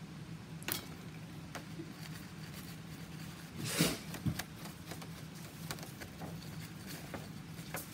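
Faint brushing and tapping of a paintbrush against a cardboard paper towel roll as it is painted and handled, with one louder short rustle a little under four seconds in, over a steady low hum.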